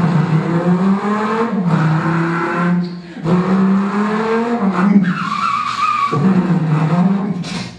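Stage performance soundtrack: a loud, sustained tone that slides slowly in pitch, in long phrases broken by short gaps about three and six seconds in.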